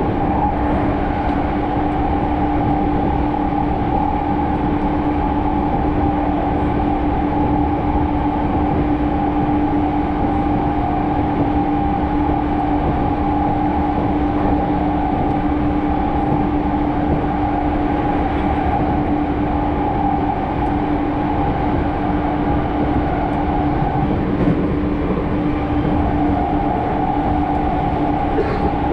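Ueno-Tokyo Line commuter train running, heard from inside the passenger car: a steady rumble of the moving train with a constant low hum and a higher hum, the higher one fading briefly near the end.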